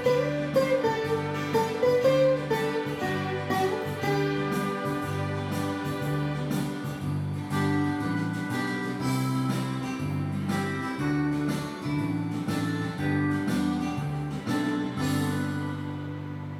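Saraswati veena played solo: a quick plucked melody with bent notes over low sustained ringing notes, fading out near the end.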